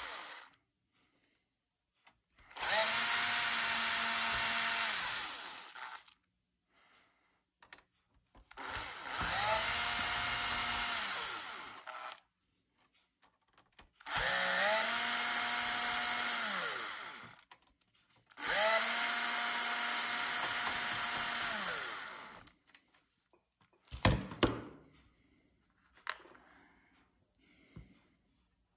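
A 10.8-volt cordless drill-driver runs four times for about three to four seconds each, backing out the screws that hold the projector's circuit board. Its motor whine rises as each run starts and sinks as it stops. Light clicks and knocks of handling follow near the end.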